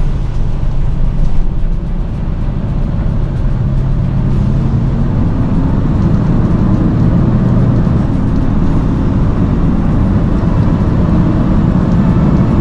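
Heavy truck's diesel engine running steadily, a loud low drone.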